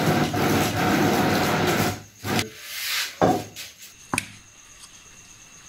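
An electric mixer grinder runs loudly for about two seconds and stops. Its stainless-steel jar is then handled in a metal bowl, with a few short scrapes and knocks and a sharp metallic click about four seconds in.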